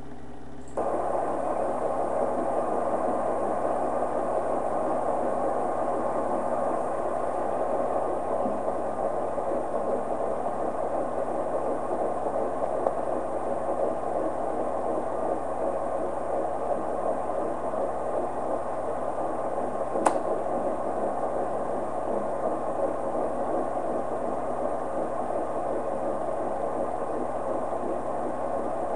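Fetal Doppler's steady hiss from its speaker, with an 11-week fetus's heartbeat faint in the noise. The hiss switches on suddenly about a second in, and there is a single sharp click about two-thirds of the way through.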